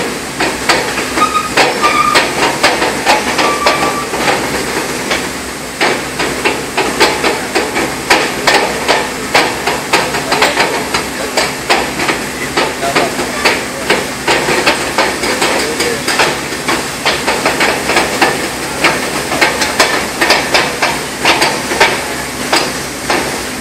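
Industrial work noise during a heat exchanger extraction: a steady hiss with rapid, irregular knocking, several knocks a second.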